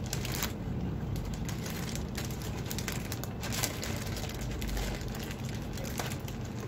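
Plastic courier mailer bag crinkling and rustling in irregular crackles as it is handled and pulled open by hand.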